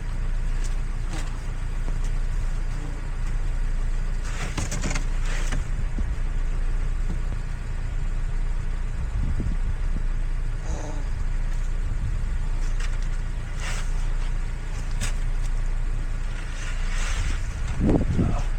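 A car driving: a steady low rumble of engine and road noise, with a few light knocks.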